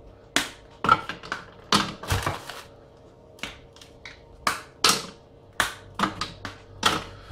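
Squares of dark chocolate dropped one by one into a Thermomix TM5's stainless steel bowl, each landing with a sharp clack: a dozen or so at uneven intervals, over a faint steady hum.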